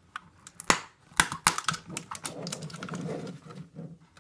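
Fingernails picking and scratching at the sticky seal on a cardboard camera box: a run of irregular sharp clicks and taps, with a softer stretch of rubbing in the middle.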